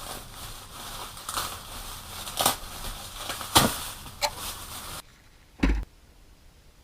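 Rustling and crackling of sheet sound-deadening material being handled, with several sharp crackles, cutting off abruptly about five seconds in; one short low thump follows.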